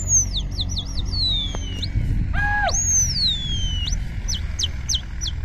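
Birds calling: clear, high whistles that sweep downward, with quick runs of short chirps, over a steady low rumble.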